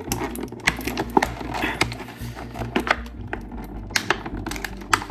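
Irregular plastic clicks and taps of toy accessories being handled and worked loose from a plastic packaging tray, over a low steady hum.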